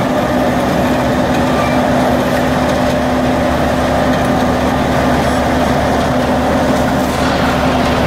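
Sumitomo HA60C asphalt paver working as it lays asphalt: a loud, steady engine and machinery drone with a constant hum, unchanged throughout.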